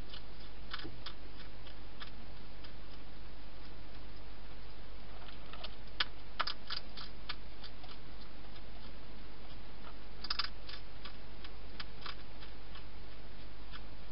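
Wild hedgehog feeding at dishes inside a plastic feeding box: irregular crisp clicks and crunches, several in quick clusters, over a steady hiss and low hum.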